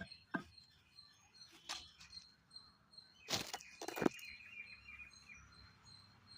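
Faint rural ambience: a high chirp repeating evenly several times a second, with a few soft knocks, the loudest two about three and a half and four seconds in.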